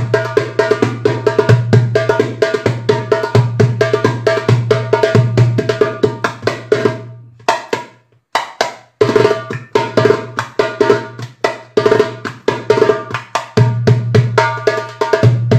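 Alexandria-type darbuka with a Power Beat synthetic head played by hand: a fast rhythm of deep booming doum strokes mixed with sharp, rapid tek and ka rolls. The playing stops about halfway through, lets the drum ring out, then starts again.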